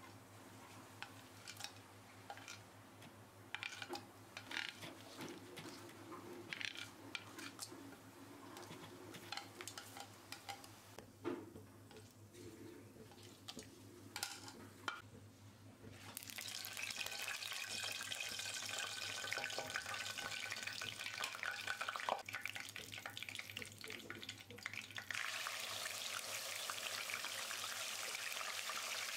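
Whole spices dropping into hot oil in a pot, with scattered small ticks and crackles, then the oil sizzling steadily from about halfway and getting louder a few seconds before the end, when a minced paste goes into the oil.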